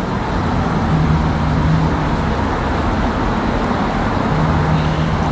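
Steady low background rumble with a droning hum that fades in and out.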